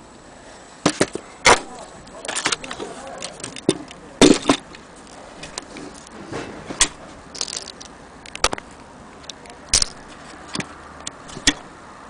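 Irregular sharp clicks and knocks of a hard object being handled, coming roughly every half second to second with short gaps between.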